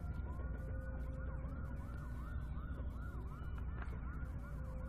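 Emergency vehicle siren: a long slow wail that switches about a second in to a fast yelp, rising and falling about three times a second. Under it runs a low steady rumble.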